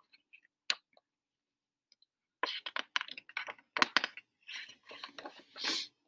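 Paper pages of a paperback picture book being turned and handled: a single small click about a second in, then a run of papery crackles and rustles through the second half.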